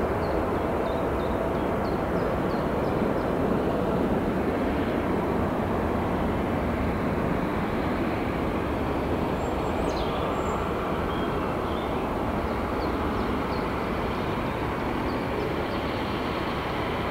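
Airbus A380's four jet engines at climb power just after takeoff: a steady, deep jet rumble that fades a little toward the end.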